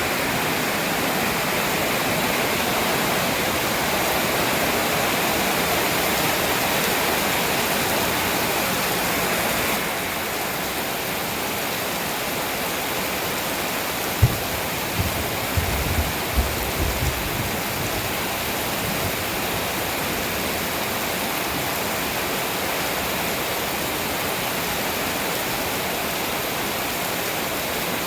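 Heavy storm rain pouring down in a steady rush, easing slightly about a third of the way in, with a short run of low thumps about halfway through.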